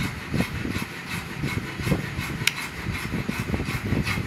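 Handling of a Winchester Model 1904 single-shot .22 rifle's bolt: irregular rubbing and scraping of hands on the metal and wood, with faint ticks and one sharp metallic click about halfway through.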